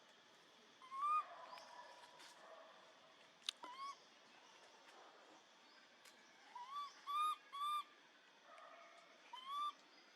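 Baby monkey crying: short, high-pitched calls that rise and fall, one loud call about a second in, a weaker one near four seconds, three close together around seven seconds and one more near the end. A single sharp click sounds at about three and a half seconds.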